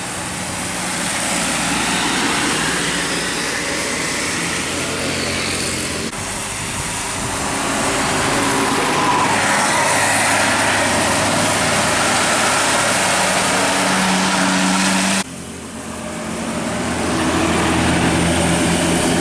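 Road traffic on a rain-wet road, buses among it: steady engine hum under a loud hiss of tyres and rain. The sound changes abruptly about six seconds in and again about fifteen seconds in.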